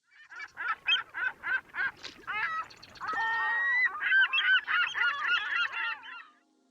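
Birds calling: a run of short calls, about three a second, then several birds calling over one another. They stop shortly before music begins.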